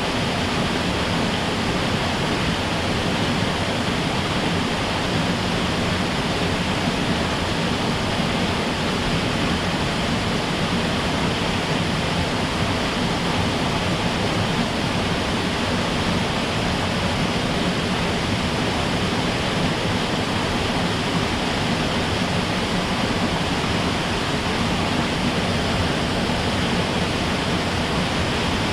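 Mountain stream rushing steadily over rocks and small falls, an even unbroken roar of water.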